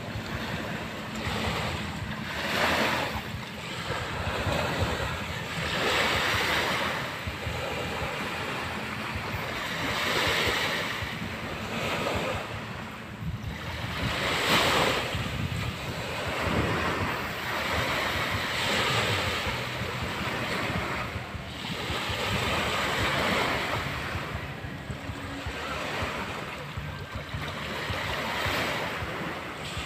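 Small sea waves breaking and washing up a sandy shore, swelling and fading about every four seconds, with wind buffeting the microphone.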